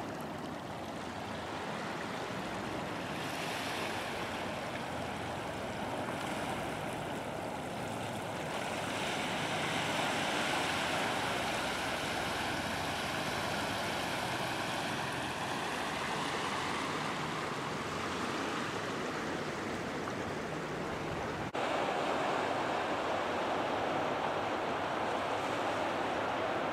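Shallow ocean surf washing in thin sheets over flat, wet sand: a steady rush of water. The sound cuts abruptly to slightly louder surf near the end.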